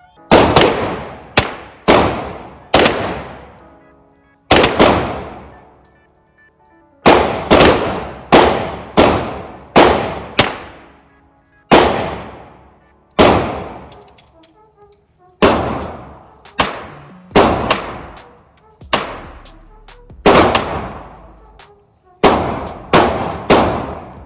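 A rapid, irregular string of pistol shots, about two dozen in all, some coming close together. Each shot is followed by a long ringing decay. A .22 pistol is among the guns being fired.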